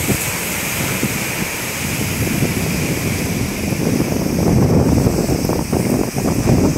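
Strong wind buffeting the phone's microphone, with surf breaking on the beach underneath.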